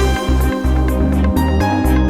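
Background music, electronic new-age style, with a steady beat and sustained synth notes.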